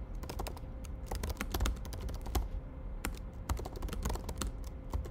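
Rapid, irregular typing on a computer keyboard, many keystrokes in quick runs with a brief lull midway.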